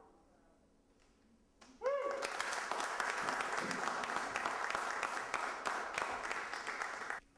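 Audience applauding after a short quiet pause. A brief shout rises as the clapping starts about two seconds in, and the applause cuts off abruptly near the end.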